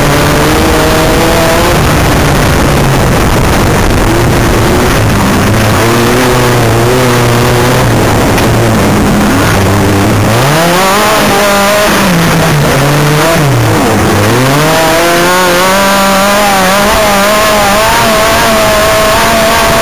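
An off-road racing buggy's engine heard from on board under racing load, its revs wavering in the first half, then rising and dropping sharply twice about two-thirds of the way in, then climbing and holding high near the end, over a constant rush of noise.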